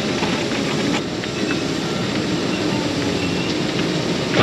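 Diesel engine of a scrap-yard material handler (grapple crane) running steadily as it works, with a few faint metallic knocks.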